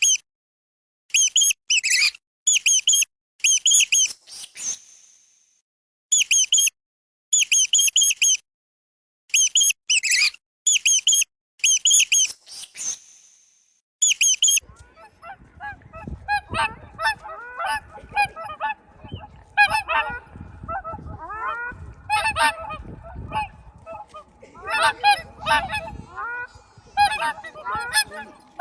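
Bird chirping: quick groups of short, high calls with silent gaps between. About halfway through, geese start honking, many calls overlapping.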